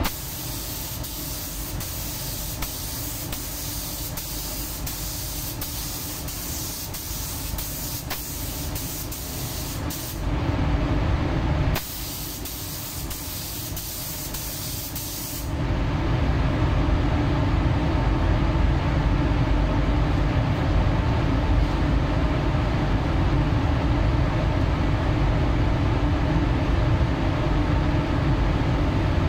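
Gravity-feed paint spray gun hissing as it sprays paint onto a car panel, with a short break about ten seconds in. The hiss stops about fifteen seconds in, leaving a steady low rumble.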